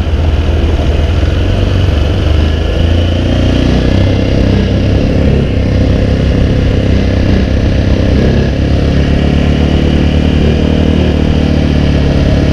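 Vehicle engine running steadily under load while towing a KTM 450 quad in gear for a bump start; the quad does not fire.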